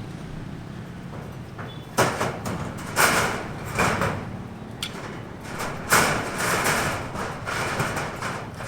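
Construction-site work noise: about five irregular knocks and scrapes, each trailing off over a moment, plus a single sharp click, over a steady low hum.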